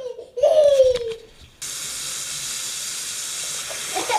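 A brief voice at the start, then a sink tap turned on about a second and a half in, with water running steadily from the faucet.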